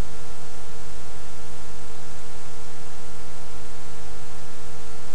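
Steady hiss with a constant electrical hum made of several fixed tones, unchanging throughout; no other sound.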